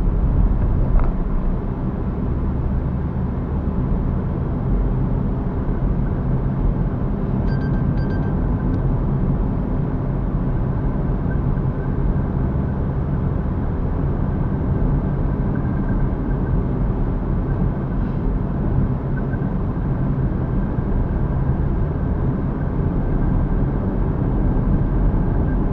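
Steady engine and road rumble heard inside a moving car's cabin, with a few faint ticks about eight seconds in.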